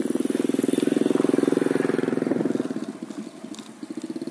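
A small engine puttering with a rapid, even beat, growing louder at the start and fading about three seconds in, then rising again near the end.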